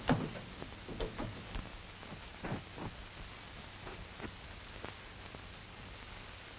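Steady hiss of an old film soundtrack with a few soft, irregular taps and scuffs from high-heeled shoes shifting on carpet, the taps thinning out after about five seconds.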